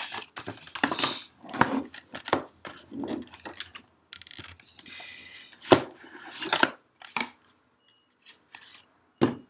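Cardboard camera box being handled: the inner box slid out of its sleeve, turned over and its lid lifted off, with irregular scraping and rubbing and a few sharp knocks.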